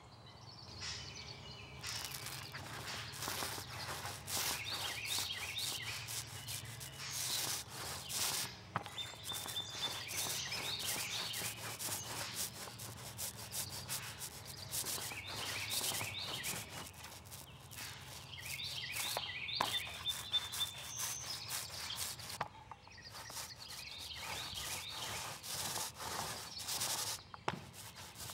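Small cabinetry paint roller rolled back and forth over a wooden drawer front, a steady rubbing sound that starts about two seconds in and stops briefly a few times. Birds chirp now and then over it.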